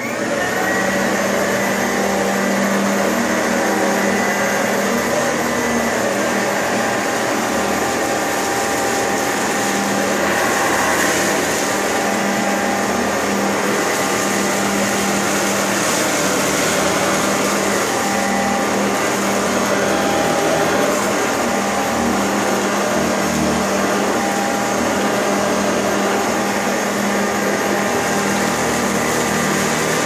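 Eureka commercial C2094 upright vacuum cleaner switched on right at the start and running steadily at full power: a loud rush of air with a steady motor hum underneath. It is being pushed over carpet into a pile of shredded paper.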